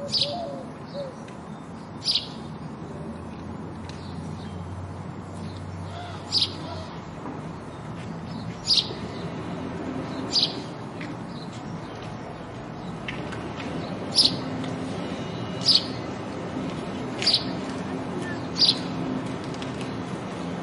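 House sparrow chirping: about nine short, single high cheeps spaced irregularly a second or few apart, over a steady low background hum.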